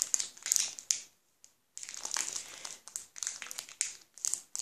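Foil wrapper of a Pokémon booster pack crinkling as it is worked open by hand, in irregular bursts with a short pause about a second in.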